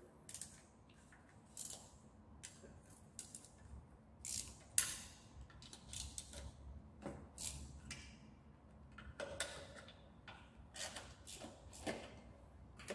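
Ratchet wrench with an 8 mm socket clicking faintly in short, irregular runs as the bolts of a scooter's engine side cover are undone.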